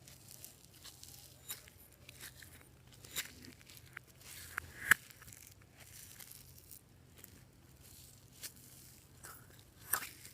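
Clear slime being worked by hand, with soft sticky crackles and small pops throughout; a sharp, louder pop about five seconds in and another near the end.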